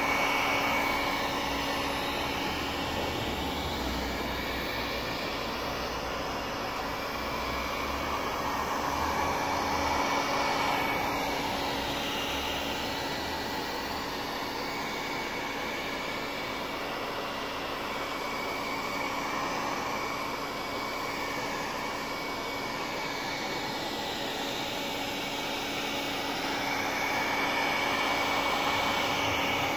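Black & Decker electric heat gun running steadily, its fan blowing hot air onto car window glass to soften the laminate. The level swells and eases slightly a few times.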